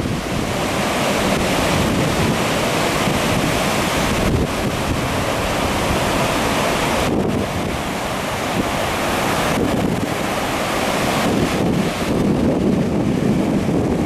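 Pacific Ocean surf breaking and washing up a sandy beach, a steady rushing wash, with wind buffeting the microphone.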